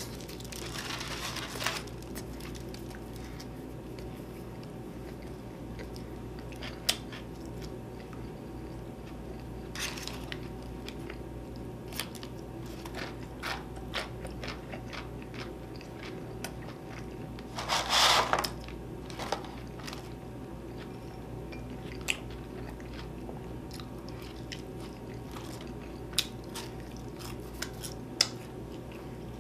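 A person chewing and biting food close to the microphone, with scattered small mouth clicks and crunches and one louder burst of noise about 18 seconds in. A steady low hum runs underneath.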